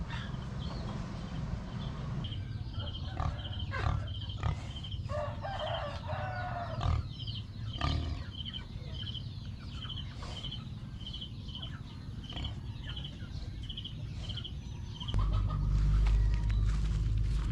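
Farmyard chickens clucking, with a longer crowing call about five seconds in, and birds chirping while one short call note repeats about twice a second. A loud low rumble comes in near the end.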